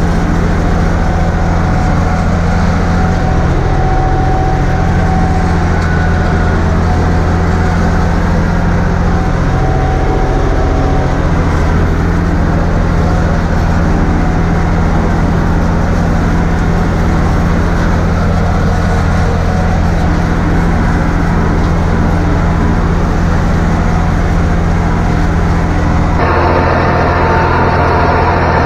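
Massey Ferguson 254S tractor's diesel engine running steadily under mowing load, heard from inside the cab, with a deep even hum. The sound shifts abruptly near the end.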